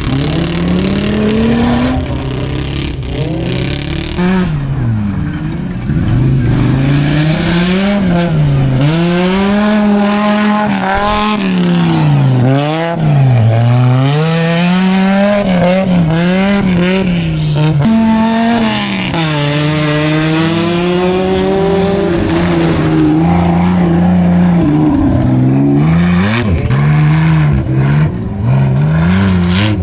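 Off-road 4x4's engine revving up and down over and over under load as it works through a dirt trench, the pitch rising and falling every second or two.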